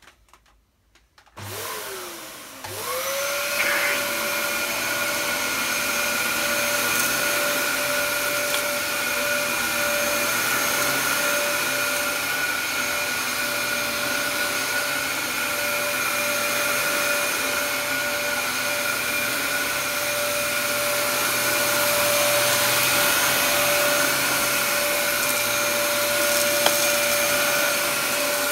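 Dyson DC07 upright vacuum cleaner switched on about a second in: after a brief dip, the motor spins up with a rising whine that settles into a steady high-pitched whine over a rush of airflow as it is pushed across carpet strewn with dry bits.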